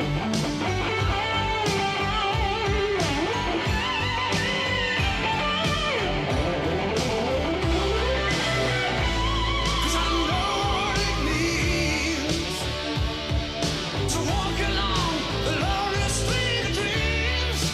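Rock music: a lead electric guitar playing bending, gliding lines over a steady drum beat.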